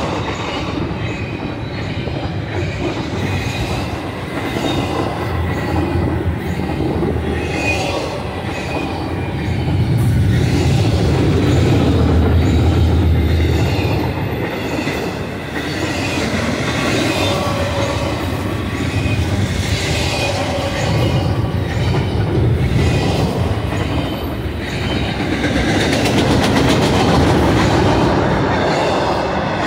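Freight train of double-stack container well cars rolling past close by: a steady rumble of steel wheels on the rails. It swells louder twice as heavier stretches of the train go by.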